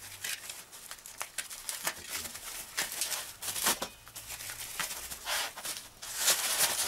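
Plastic wrap and bubble wrap crinkling and rustling as they are pulled off a scooter's handlebar grip, with many small crackles. There is a louder rustle near the end.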